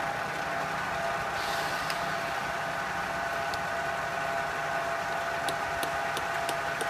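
Electric motor of a stationary shop machine running steadily with a hum. A few light clicks near the end come as small polyurethane mallet heads are handled on a steel rail.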